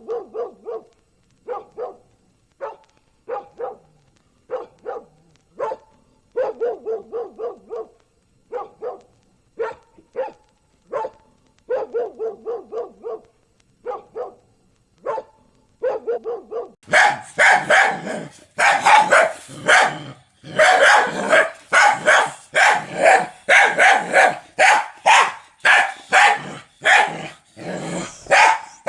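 Dog barking repeatedly, in short single barks and quick runs of several. About seventeen seconds in, louder and harsher barking takes over, coming thick and fast.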